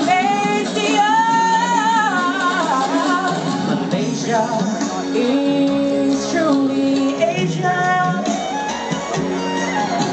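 A male singer singing a slow, wavering melody with vibrato into a microphone over instrumental backing music.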